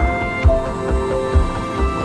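Background music: sustained instrumental notes over a steady, even beat.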